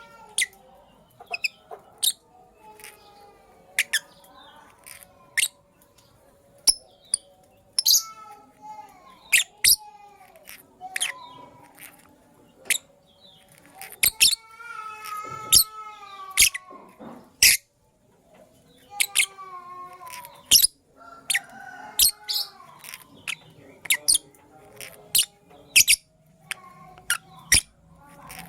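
Lovebirds chirping: many short, sharp, shrill chirps at irregular intervals, with softer warbling chatter in between.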